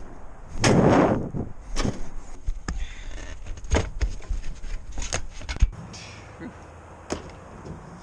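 Handling of a rooftop unit's metal access panels and air filters: a rushing scrape about a second in, then a run of knocks and clatters with a sharper bang about five and a half seconds in.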